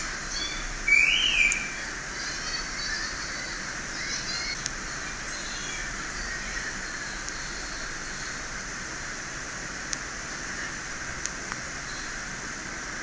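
Steady background hiss with repeated short, high chirps and one louder chirp about a second in, plus a few faint clicks.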